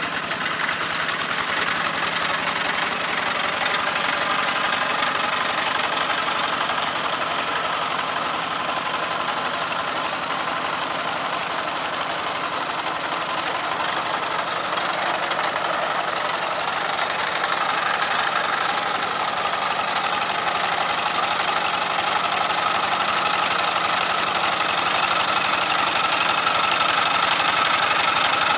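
Old Kubota single-cylinder diesel engine on a walk-behind hand tractor running steadily under load, pulling a leveling rig through flooded rice-paddy mud, with a knocking diesel beat. It grows louder over the last several seconds.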